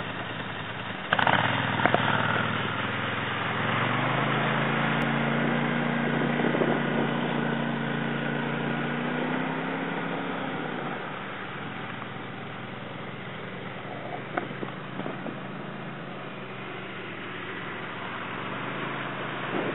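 Quad bike (ATV) engine running as the machine drives into shallow lake water. The engine note climbs about four seconds in, holds, and drops back about ten seconds in.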